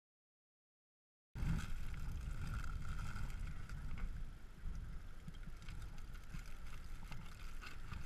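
Dead silence for about a second, then a steady low rumble of wind on an action camera's microphone, with a few faint clicks and rustles of handling.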